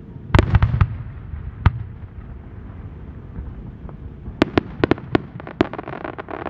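Aerial chrysanthemum firework shells bursting. A loud boom comes about half a second in, with a few quick sharp reports after it and another single crack near two seconds. From about four and a half seconds a rapid run of sharp crackling reports follows.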